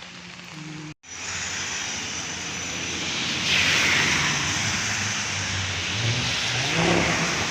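Traffic passing on a rain-soaked street: tyres hissing on the wet road with engines underneath, swelling as a vehicle goes by about three and a half seconds in and again near the end. The sound cuts out completely for a moment about a second in.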